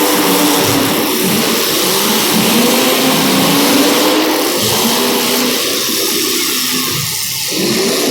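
Demolition derby cars' engines revving up and down over and over, loud and continuous, over a steady rushing noise.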